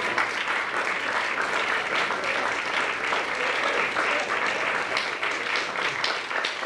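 Audience applauding: many hands clapping at an even level.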